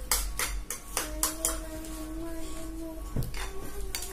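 Metal spoons clinking and scraping against ceramic and plastic bowls and plates as fuchka shells are filled, a quick irregular run of sharp clinks. A faint steady hum sounds under them from about a second in for two seconds.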